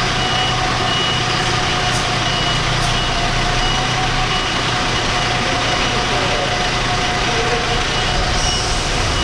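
City bus's diesel engine running as it reverses, with its reversing alarm giving short high beeps about once a second.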